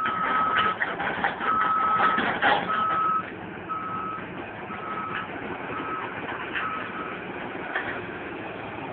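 Warning alarm on a Caterpillar 315 excavator beeping a single steady tone about once a second, over the machine's engine and clanking. The noise is loudest in the first three seconds.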